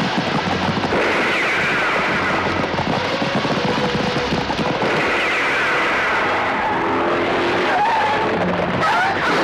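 Film chase sound effects: horses galloping hard on a dirt track, a dense run of rapid hoofbeats under a noisy wash, with a car driving fast on the dirt road near the end.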